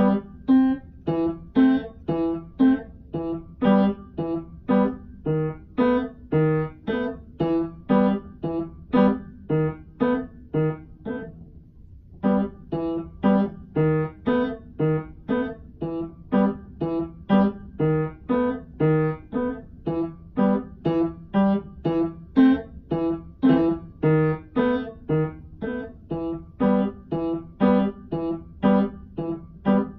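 Upright piano being played: a steady line of single struck notes at about two a second, with a pause of about a second near the middle before the playing resumes.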